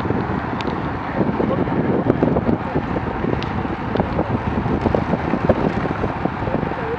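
Wind buffeting a Garmin VIRB action camera's microphone while moving, a dense rushing noise with many small rattles and clicks through it.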